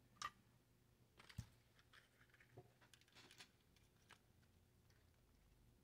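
Near silence with a few faint, short clicks and taps from handling a circuit board while desoldering it with a soldering iron.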